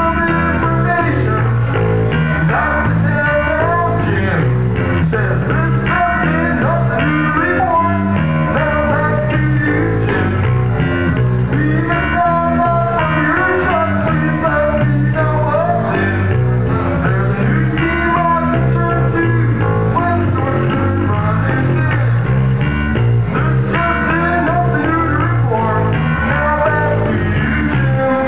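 Live music: a voice singing over a steady electric bass line.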